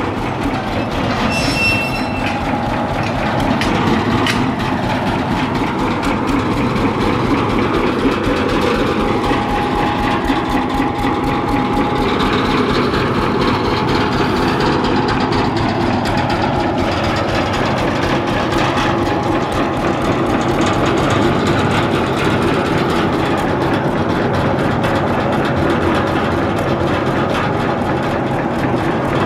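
Stationary natural gas engine running steadily, with a fast, even mechanical beat.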